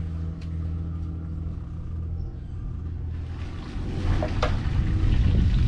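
An engine running at a steady speed with a low hum. About four seconds in it grows louder and rougher, and two sharp clicks are heard.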